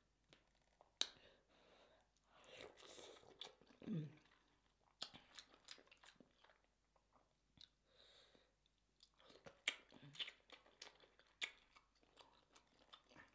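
Close-miked eating of crab legs: shells cracking and snapping in a string of sharp clicks, with wet chewing and sucking between them. A short low hum comes about four seconds in.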